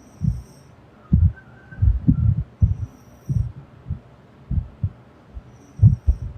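A person snoring: low, irregular rumbling pulses, coming one to three times a second and sometimes in quick clusters.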